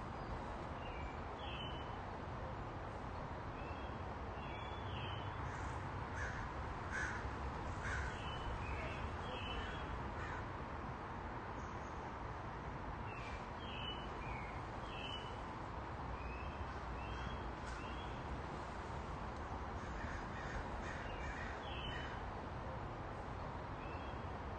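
Squirrel monkeys calling with short, high chirps that come in small clusters every second or two, over a steady low background hum.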